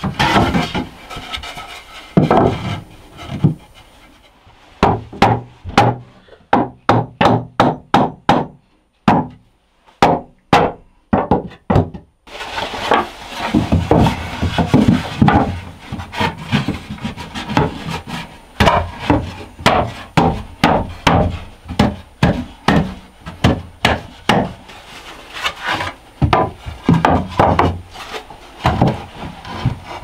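Cedar boards knocking and clattering against a wooden shelf frame as slats are laid and shifted into place, with wood rubbing on wood. In the first half there is a run of sharp, evenly spaced knocks, about two a second.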